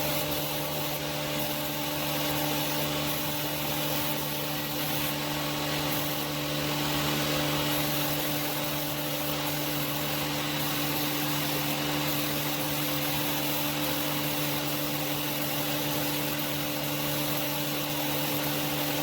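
Spray-painting equipment running steadily as clear coat is sprayed: a motor's even hum under a constant rush of air hiss.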